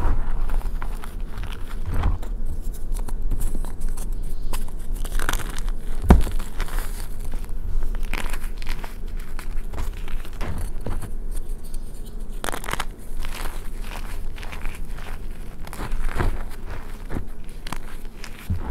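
Hands squeezing and crumbling powdery reformed gym chalk and its broken lumps, a continuous soft crunching with sharper crunches every second or so. A dull thump about six seconds in.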